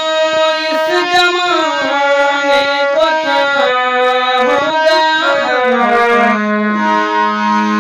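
Harmonium playing a stepwise melody on its reeds over a held low note.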